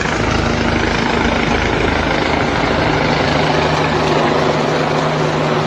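An engine running steadily under a loud rushing noise, with a low hum that shifts pitch about three seconds in.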